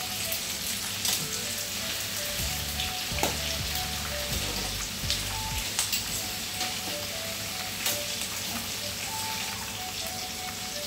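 Marinated pork pieces sizzling in hot oil in a frying pan, a steady hiss dotted with sharp pops and clicks as the meat is turned over with metal tongs.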